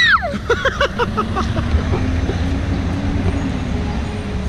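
City street traffic with a heavy vehicle's engine running steadily. At the very start a high falling squeal, then a quick string of short high voice-like notes during the first second and a half.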